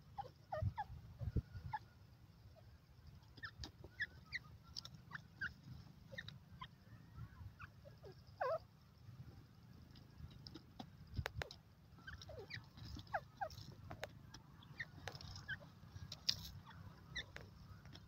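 Faint, scattered short bird chirps and calls, some with quick rising or falling glides, over a low steady wind rumble, with a few sharp clicks.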